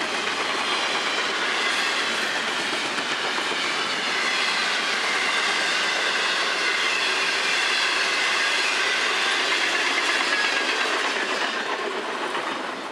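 Freight train's double-stack container well cars rolling past, steel wheels clattering on the rails with faint high ringing tones, the sound falling away near the end as the last car goes by.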